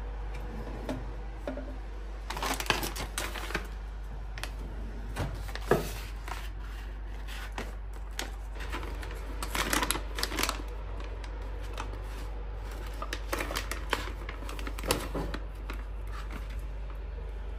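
Plastic dog-treat pouch being handled and opened by hand: crinkling and crackling rustles in several separate bursts, with a sharp knock about six seconds in.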